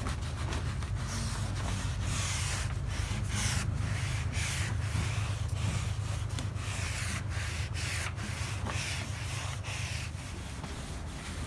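Sponge scrubbing oil into weathered wooden deck planks: irregular, rough back-and-forth rubbing strokes over a steady low hum.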